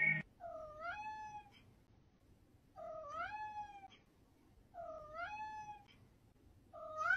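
A cat meowing four times, about two seconds apart, each call short and questioning, dipping and then rising in pitch.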